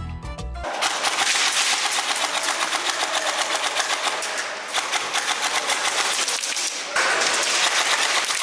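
Airsoft gun firing on full auto: a rapid, continuous rattle of shots that starts about a second in and pauses briefly near the end.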